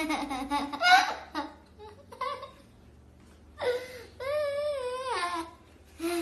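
A toddler laughing: short breathy giggles at first, then a long high wavering squeal of laughter that starts and ends sharply, as a piglet nuzzles and tickles him.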